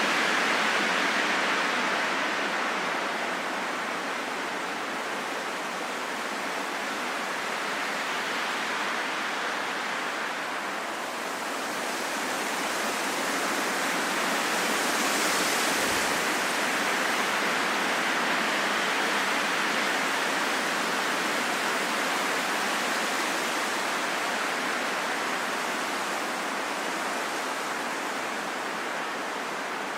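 Wind blowing steadily as a broad hiss that slowly swells and eases, with a stronger, brighter gust about halfway through.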